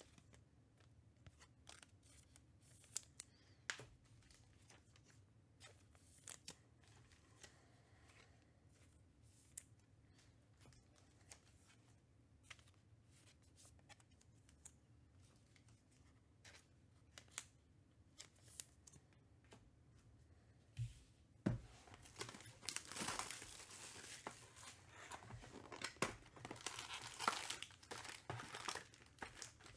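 Scattered faint clicks, then about two-thirds of the way in, loud tearing and crinkling as a trading-card hobby box is torn open and its wrapped packs are pulled out and handled.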